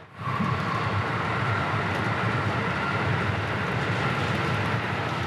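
Electric commuter train running at speed, heard from inside the carriage: a steady rumble of wheels and running gear with a faint steady whine above it.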